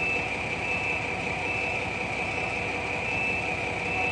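Large 18-ton forklift's engine running steadily under load, with a steady high-pitched whine on top.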